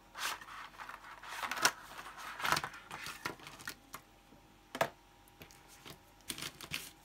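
A cardboard pen box being opened and Bruynzeel fine line brush pens with plastic barrels sliding out and clicking against each other on paper. The rustling and scraping come in the first three seconds; then comes one sharp click a little before five seconds, and a few light clicks near the end as the pens are pushed about.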